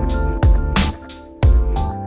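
Electronic background music with heavy bass, held synth notes and a steady drum beat.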